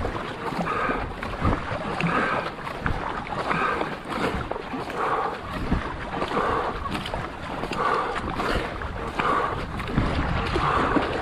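A racing canoe being paddled hard, with a regular beat of paddle strokes and water washing about every second and a half, over wind on the microphone.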